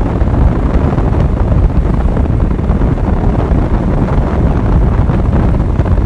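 Wind buffeting the microphone in a loud, steady, low rush while travelling along a road, with vehicle road noise beneath it.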